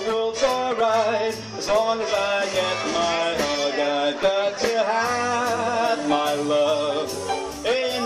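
A live big band playing with a singer at the microphone, the voice held and wavering with vibrato over a steady beat and bass line.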